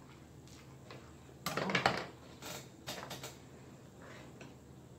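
Close-up eating sounds of instant noodles: a loud slurp about a second and a half in, followed by a few shorter slurping and chewing sounds, with the light clatter of chopsticks against the pan.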